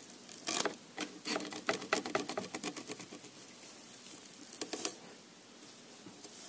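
Rustling and crackling of a tangled mass of long stringy plastic turnings being pulled and torn off a lathe workpiece by hand, in irregular bursts with a last cluster near the end. The snarl comes from cutting with an unbroken, endless chip that wraps around the workpiece.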